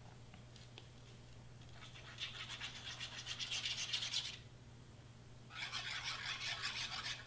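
Precision tip of a Bearly Art glue bottle scraping along the back of a cardstock cut-out as glue is laid down in thin lines. It comes as two spells of fast scratchy rubbing, each about two seconds long: the first begins about two seconds in, the second about five and a half seconds in.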